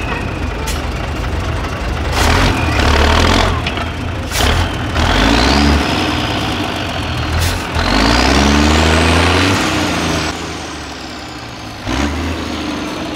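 Trial truck's diesel engine labouring and revving in surges as the truck climbs through a deep ditch, its pitch rising with each surge. A high whine climbs with the revs and falls away after. Several sharp knocks are heard.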